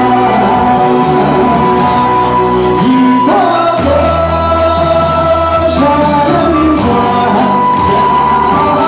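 A man singing a pop-style song into a microphone over amplified backing music, with held notes that slide in pitch.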